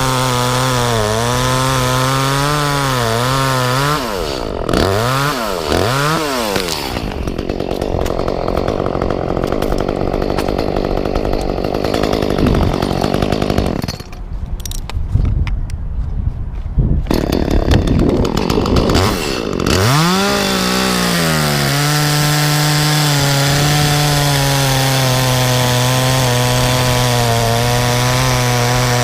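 Echo chainsaw running steadily, revving up and down about four seconds in, then cutting into oak wood under load for roughly a dozen seconds before settling back to a steady run.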